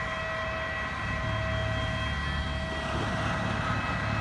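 Aircraft turbine running steadily: a low rumble under several steady high whining tones.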